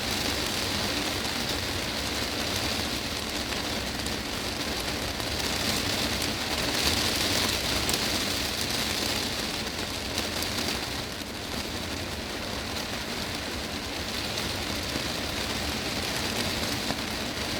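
Heavy rain drumming on a glass greenhouse roof: a dense, steady hiss of drops that swells slightly in intensity partway through.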